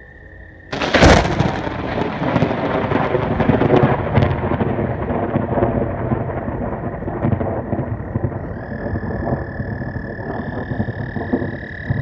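Close lightning strike: a sudden sharp crack of thunder about a second in, followed by a long crackling, rumbling thunder that slowly fades. Frogs' steady trills start up again in the second half.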